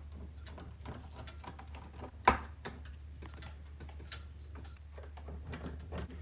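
Small scattered metal clicks and taps of deadbolt hardware being handled and screwed into the door, with one louder click a little over two seconds in, over a low steady hum.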